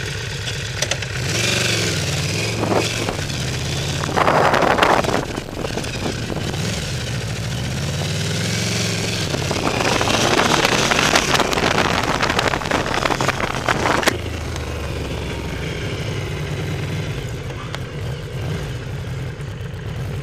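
Yamaha VMAX motorcycle's V4 engine running under way, its pitch rising and falling with the throttle. Two spells of loud rushing noise pass over it, a short one about four seconds in and a longer one from about ten to fourteen seconds.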